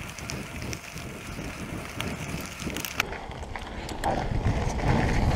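Mountain bike rolling fast along a dirt singletrack: tyre rumble and wind on the microphone, with a few sharp clicks and rattles from the bike. The rumble grows louder over about the last second.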